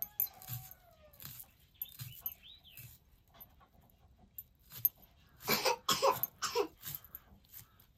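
Animal calls: thin falling whines in the first few seconds, then a short run of louder cries about six seconds in, over scattered small clicks and rustling.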